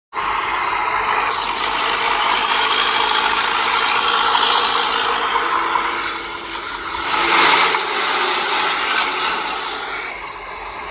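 Heavy earthmoving machinery running: a steady, loud mechanical din of engine and moving metal, swelling briefly about seven seconds in.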